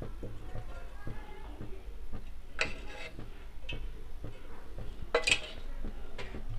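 Cooking oil poured in a thin stream into a nonstick frying pan: faint trickling with light ticks and clinks of the metal pouring utensil, two of them a little louder about two and a half and five seconds in.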